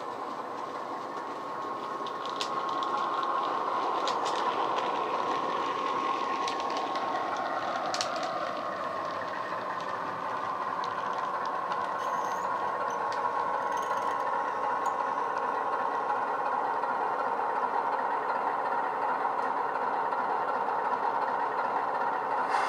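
Sound-fitted OO gauge Heljan Class 45 model diesel locomotive, its DCC decoder playing a Legomanbiffo Sulzer diesel engine sound through an EM1 speaker. The engine sound is a steady drone that grows louder over the first few seconds as the model approaches. A few sharp clicks come in the first part.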